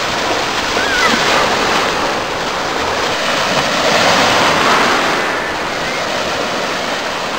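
Sea waves washing on a shore, a steady rushing that swells about four seconds in, with faint distant voices.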